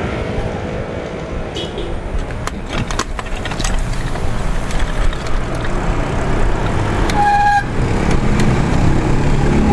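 Wind and road noise from riding a mountain bike, rushing over an action camera's microphone, with motorbikes on the road, and a few sharp clicks in the first few seconds. About seven seconds in, a vehicle horn gives one short toot.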